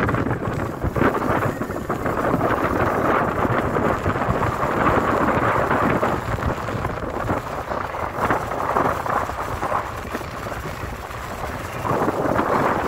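Steady rushing wind and sea noise, with wind buffeting the microphone and the level rising and falling in gusts.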